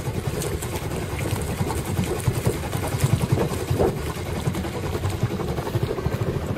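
A small sailing boat's engine running steadily while motoring against the tide, with wind buffeting the microphone.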